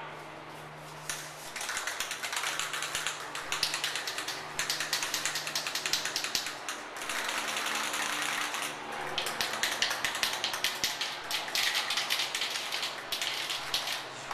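Aerosol can of neon pink spray paint shaken hard, its mixing ball rattling in rapid clicks to mix the paint before spraying. The rattling comes in several long bursts with short pauses between them.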